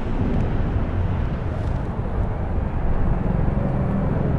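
City street ambience: a steady rumble of passing traffic.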